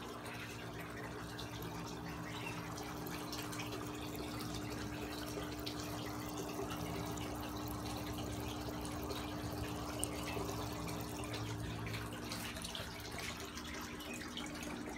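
Water trickling and splashing steadily from a return pipe into a plastic cooler used as a fish tub, with a steady low hum underneath.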